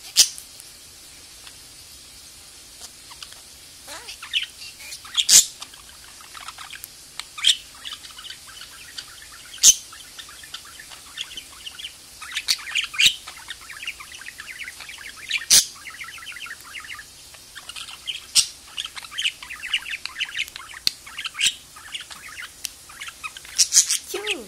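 Budgerigar chattering: soft warbling runs with short sharp chirps scattered through.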